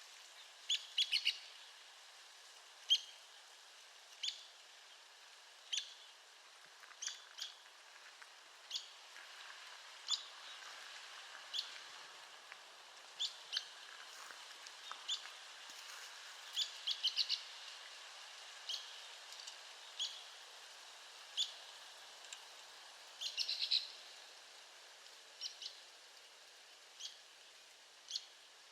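Arizona woodpecker calling: short, sharp, high single notes repeated about every second and a half. Three times (about a second in, around the middle, and near the end) it gives a quick run of several notes.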